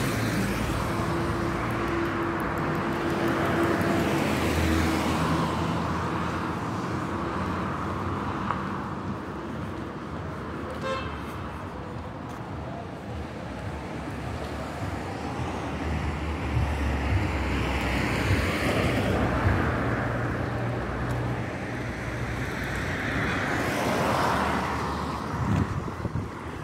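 Road traffic on a street: car engines and tyre noise, with passing cars swelling and fading a few times. A brief pitched tone sounds about eleven seconds in.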